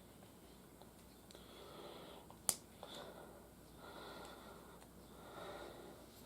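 Quiet handling of small plastic snap-together figure parts, with one sharp click about two and a half seconds in and a few fainter clicks, over soft breathing.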